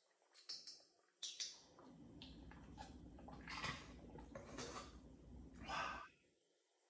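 Close-miked mouth sounds of drinking iced horchata through a straw: a few wet clicks and gulps in the first second and a half. These are followed by a low hum with three breathy exhales after the sip.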